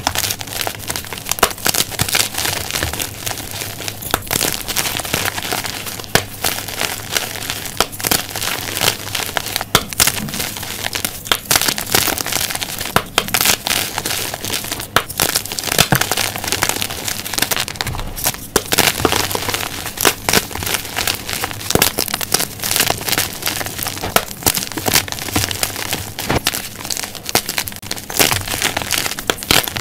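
Blocks of magnesium-carbonate gym chalk crushed and crumbled in the fingers over loose chalk powder: a continuous dry crunching and crackling, dense with sharp little snaps as the blocks break.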